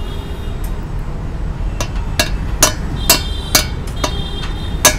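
A steel hammer tapping a new plastic swingarm bush into the pivot tube of a Royal Enfield Classic 350's swingarm, fitting it in place of a worn-out bush. The blows start about two seconds in and come about twice a second, each a sharp knock with a brief metallic ring.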